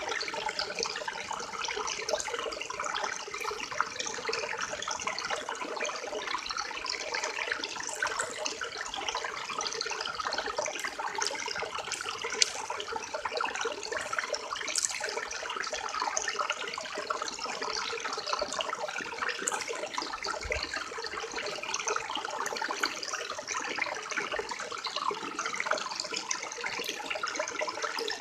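River water flowing steadily, a continuous rushing babble with small splashes scattered through it.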